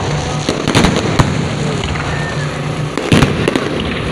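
Fireworks bursting overhead: a continuous dense crackle with sharp bangs about half a second, a second and three seconds in.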